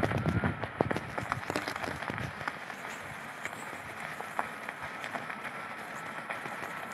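Electric unicycle riding over packed snow: a thin, steady high whine from the hub motor, with scattered ticks and crackles from the tyre on the snow. Low wind rumble on the microphone fades out about two seconds in.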